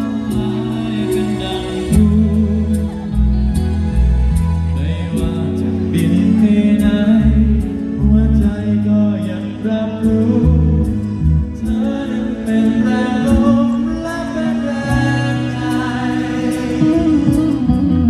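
Male singer performing a pop ballad live through a PA system, over backing music with a steady beat and bass line.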